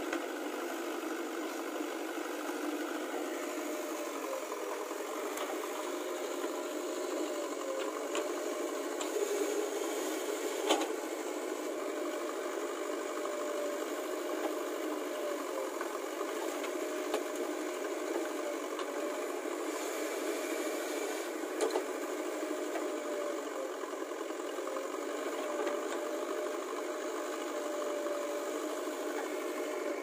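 JCB 3DX backhoe loader's diesel engine running steadily with a rattle, a held tone in its running dipping and recovering every few seconds. A few sharp knocks stand out, the loudest about ten seconds in.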